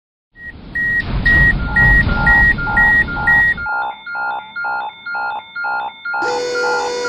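Electronic railroad crossing warning bell ringing in a steady rhythm of about two dings a second. For the first few seconds it sounds over a rumbling noise, then on its own. Near the end a steady low tone joins it.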